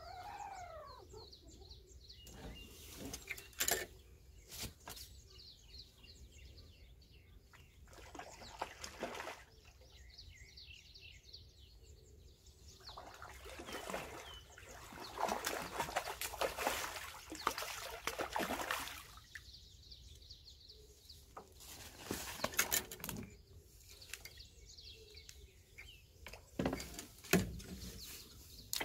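A hooked Israeli carp thrashing at the water's surface on a pole-fishing line, splashing in several irregular bursts.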